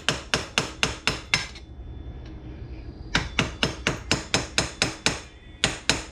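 Hammer rapidly striking an old screwdriver used as a drift on the ATV's rear sprocket, sharp ringing metal-on-metal hits about five a second. The hits come in three quick runs broken by short pauses.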